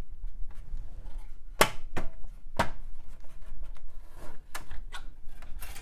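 Plastic front bezel of an InWin Q500 tower case being pulled off by hand, its retaining clips snapping loose: three sharp snaps close together a little under two seconds in, with lighter clicks and rattles of the plastic before and after.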